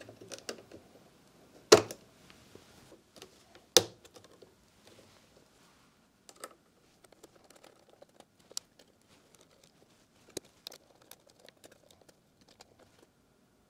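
Hand assembly on a 3D printer frame: two sharp knocks about two seconds apart, then a scatter of light clicks and ticks as a hex driver turns small screws into the top of the frame.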